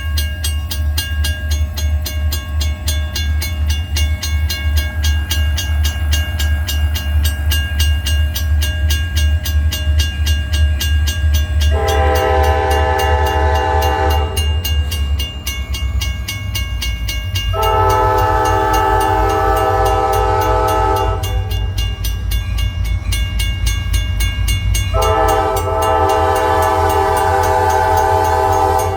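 EMD SD40-2 diesel-electric locomotives, each with a 16-cylinder engine, rumbling steadily as they approach. The lead unit sounds its multi-chime air horn in three long blasts, about 12, 17 and 25 seconds in, for the grade crossing.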